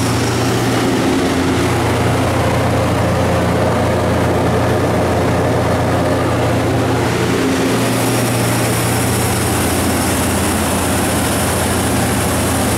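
GM 5.7 L V8 engine of a Baldor 67 kW natural gas generator set running steadily at governed speed under about 65 kW of load-bank load. It is a constant, even drone with no change in speed.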